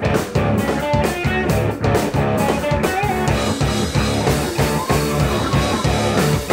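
Live rock band playing an instrumental passage: electric guitars over bass guitar and a drum kit with a steady beat.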